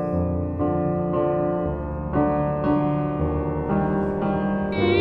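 Slow piano music, a new chord sounding about every half second.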